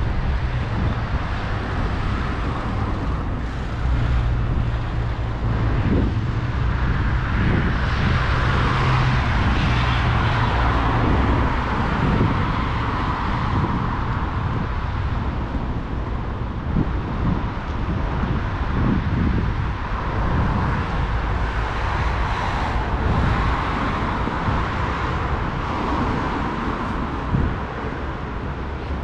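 Road traffic on a multi-lane city avenue: cars passing, their tyre and engine noise swelling and fading twice, over a constant low rumble.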